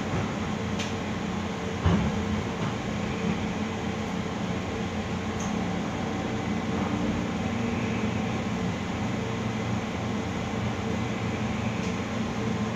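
Cabin of a KRL Commuterline electric train under way: a steady running hum with a few even tones through it, and a single thump about two seconds in.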